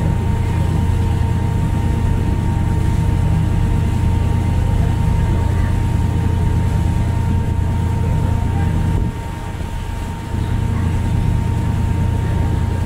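Passenger ferry under way, its engines droning steadily with a low rumble and a faint steady tone above it. The rumble drops away for about a second some nine seconds in, then returns.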